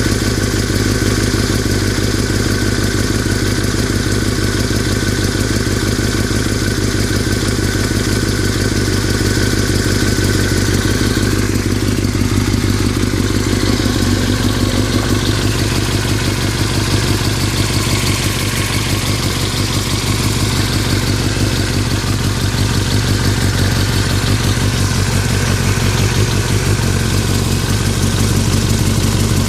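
2003 Yamaha R6 inline-four engine running steadily at idle with a rattling noise. The owner is unsure whether the rattle is normal.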